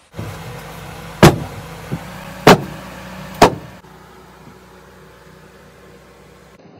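Three sharp, loud knocks about a second apart, with a fainter one between the first two, over a steady hum that drops lower a little after halfway.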